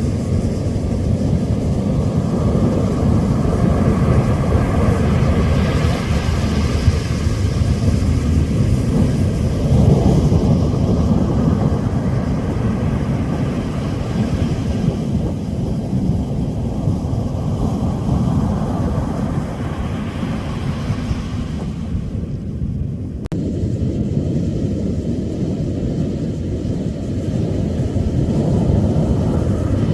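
Ocean surf with wind on the microphone: a steady low rumble that swells and eases, strongest a few seconds in and dipping briefly near the last quarter.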